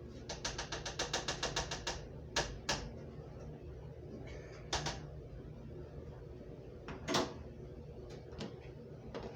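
Oil heating in a skillet on the stove, crackling and popping: a fast run of about ten clicks a second for under two seconds, then a few scattered single pops over a steady low hum.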